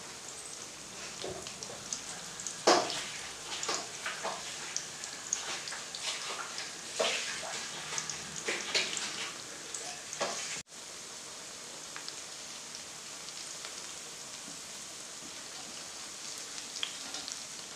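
Battered cauliflower florets (gobi 65) deep-frying in hot oil in a kadai: a steady sizzle with frequent sharp crackles and pops. After a brief cut-out about ten seconds in, it gives way to a smoother, even sizzle.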